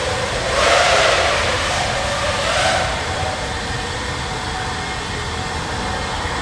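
Racing FPV quadcopter's motors and propellers whirring in flight through a concrete parking garage, over a steady low rumble. The whir swells twice in the first three seconds, then settles.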